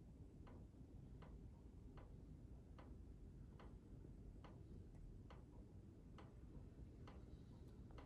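Faint, regular ticking, a little more than one tick a second, over a low background rumble.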